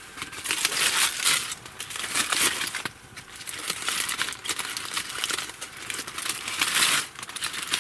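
Aluminium foil crinkling and rustling as it is folded back around food, in irregular spells with short pauses.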